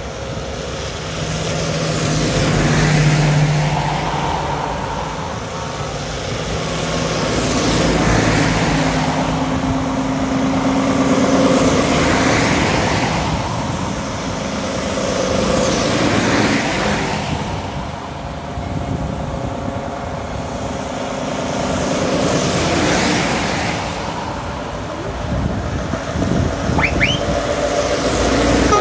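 A line of heavy lorries driving past one after another, each one's diesel engine and tyres swelling up and fading away, about six passes in all.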